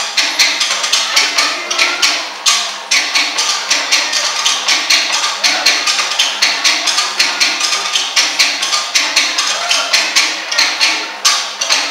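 Fast Tahitian drum music: rapid, even strokes on wooden slit drums (to'ere), with a brief break about two and a half seconds in and another near the end.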